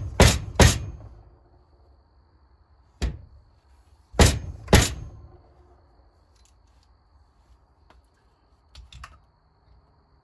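Sharp metal-on-metal knocks as a new fork seal is driven into the fork tube of a 1996 Honda XR250R with a makeshift driver clamped on the tube: two quick knocks in the first second, one about three seconds in, two more around four to five seconds, then a few faint clicks near the end.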